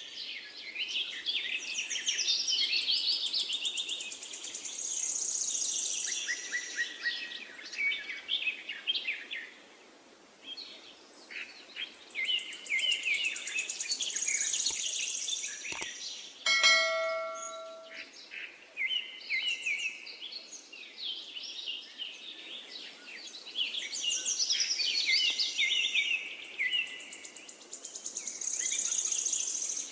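A finch singing three long, rapid warbling song phrases full of chirps and high trills, with short pauses between them. About halfway through, a brief bell-like ring is the loudest sound.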